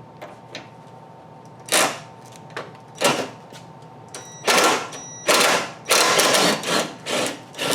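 Ratchet wrench clicking in short, irregular bursts, working the nut off a lower ball joint whose stud spins in its socket. The bursts come closer together in the second half.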